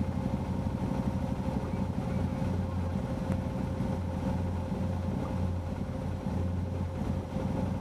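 Can-Am Commander side-by-side's V-twin engine idling steadily.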